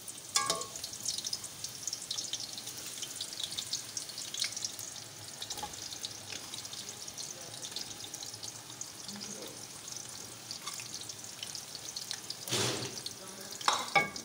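Sliced onions frying in hot oil in a metal pot, a steady crackling sizzle as they start to turn golden, with a metal ladle stirring through them. Two louder knocks of the ladle against the pot near the end.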